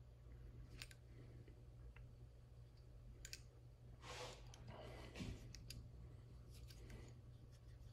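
Near silence with a few faint clicks and short scrapes from small metal shotgun parts being handled, over a low steady hum.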